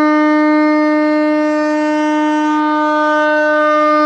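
A shofar sounding one long, steady held note, loud and unwavering in pitch.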